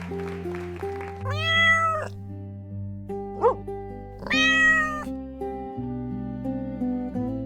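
Two drawn-out cat meows, each about a second long, over gentle background music, with a brief high blip between them.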